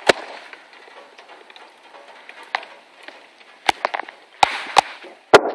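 Rustling and handling noise with sharp knocks and taps, a few scattered at first and coming more often near the end.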